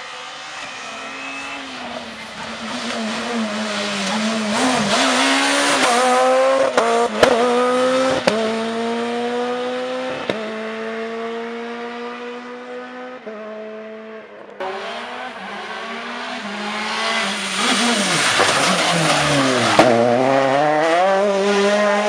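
Rally car engine at full throttle, climbing through the gears with a sharp crack at each upshift, then fading as it goes away. After a cut about two-thirds of the way in, a rally car comes by loud, its engine pitch dropping as it brakes and downshifts, then rising again as it accelerates away.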